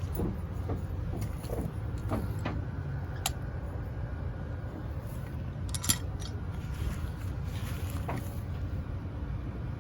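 A vehicle engine running steadily with a low rumble, with scattered clicks and knocks on top, the sharpest about six seconds in.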